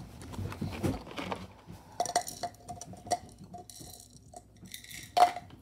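Small hard objects clicking and clinking as they are handled, with light rustling; the loudest knock comes near the end.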